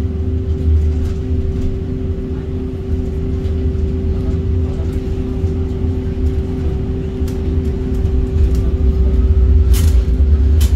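Tram running along its street track, heard on board: a steady low rumble with a constant electric hum. A faint whine rises in pitch over the last few seconds, and two sharp clicks come near the end.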